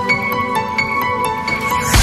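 Background music: a gentle melody of ringing notes over a steady bed.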